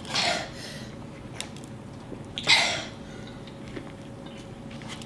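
A person coughing twice: a short cough at the start and a louder one about two and a half seconds in.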